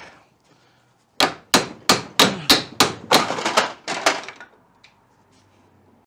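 Hammer blows on a stuck VW Beetle pedal held in a vise, driving the pedal off its shaft: a quick run of about ten sharp strikes, about three a second, starting about a second in, then a couple of light taps. The pedal is seized on the shaft and only slowly coming apart.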